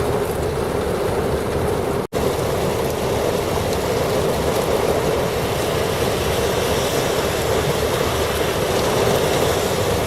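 Heavy rain pouring down in a severe thunderstorm, with gusty wind, as a loud, steady rush. It cuts out for an instant about two seconds in.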